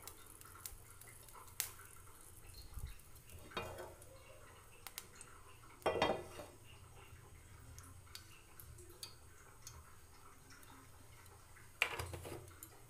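A metal frying pan knocking and clinking against the gas stove's pan support as it is handled, the loudest knock about six seconds in, with faint scattered ticks in between.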